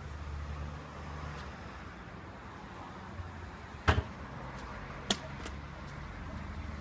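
Sharp double knock about four seconds in, then a lighter knock about a second later, from a plastic wheelie bin as rubbish is put into it. Under it runs a steady low outdoor hum.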